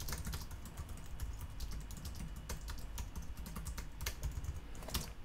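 Typing on a computer keyboard: a quick, irregular run of key clicks, with a couple of louder clicks near the end.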